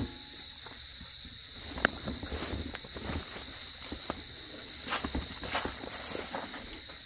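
Steady, high-pitched insect chorus outdoors, with scattered light clicks and knocks over it.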